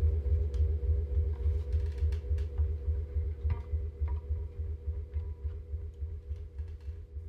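The band's final notes ringing out and slowly fading: a deep low bass tone with a couple of sustained guitar notes above it, dying away, with a few faint clicks.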